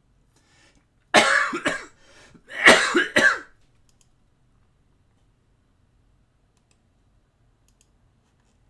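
A man coughing in two short bouts about a second and a half apart, each made of a few quick coughs.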